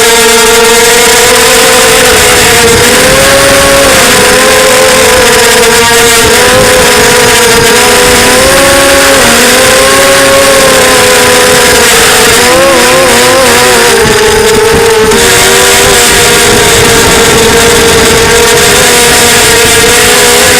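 Brushless motors and propellers of a 250-size FPV quadcopter with Arris 2204 2300KV motors whining loudly in flight, the pitch wavering up and down with the throttle and a few quick wobbles around the middle, over a steady rush of air.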